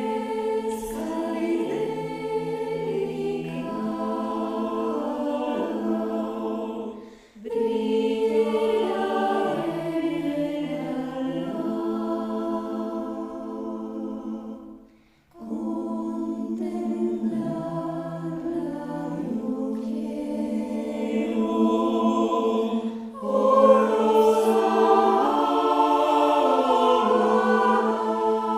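Mixed a cappella choir of sopranos, mezzo-sopranos, tenors and baritones singing slow, sustained chords. The phrases break off briefly about seven and fifteen seconds in, and the choir swells louder near the end.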